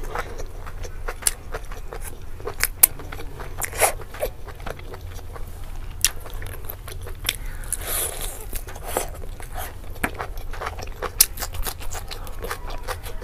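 Close-miked eating sounds: biting and tearing meat from a curried chicken leg, with irregular wet smacks and sharp clicks of chewing.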